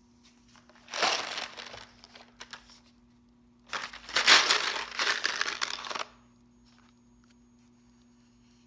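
Mike and Ike candy package handled and squeezed, crinkling and rattling in two bursts: a short one about a second in, then a longer, louder one that stops at about six seconds.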